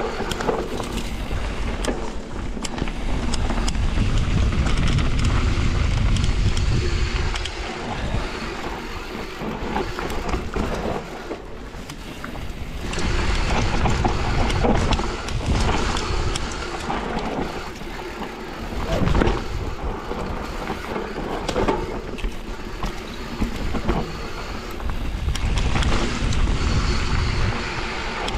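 Mountain bike riding down a dirt trail: wind rushing over the camera microphone in gusts, with tyres crunching on the ground and the bike clattering over bumps in many short knocks.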